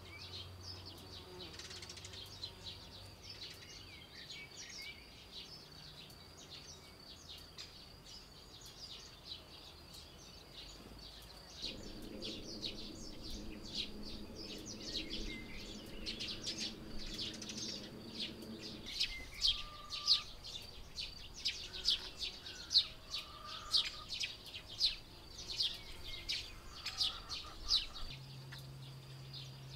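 Songbirds at a nest chirping: short, high calls, scattered at first, then coming thick and fast through the second half. A steady high whine runs underneath, and a low droning hum comes in for several seconds in the middle.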